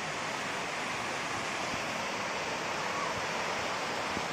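Waterfall's water rushing nearby: a steady, even noise with no breaks.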